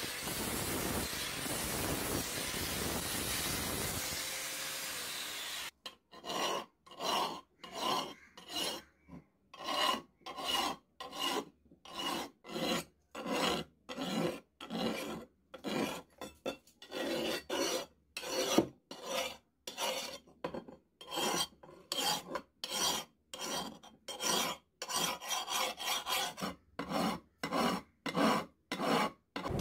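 A hand file rasping across the edge of a billhook forged from truck leaf-spring steel, in steady back-and-forth strokes about one and a half a second. For the first five seconds or so, before the filing, there is a steady grinding hiss.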